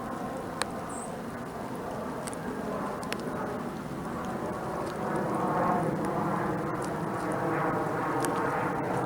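Engine drone of an aircraft passing overhead, growing louder about halfway through, with a few sharp ticks and a brief high chirp.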